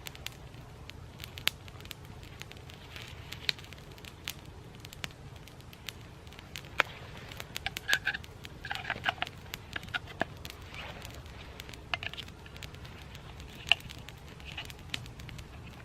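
Campfire burning, with irregular sharp pops and crackles from the wood over a steady low background noise; the crackling is busiest about eight to ten seconds in.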